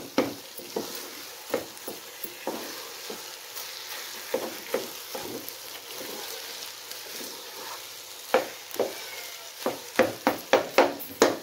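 Thick roti halwa sizzling in oil in a non-stick pot while a wooden spatula stirs and presses it, scraping and knocking against the pot. The knocks come in quick runs near the start and again in the last few seconds, with only a few in between. The halwa is cooked down to the stage where it leaves the sides of the pan and releases its oil.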